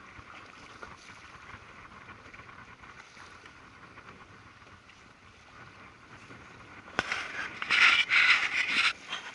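Steady hiss of sea and wind around an open inflatable boat, with no engine note. About seven seconds in, a sudden loud, noisy burst lasting about two seconds, right at the microphone.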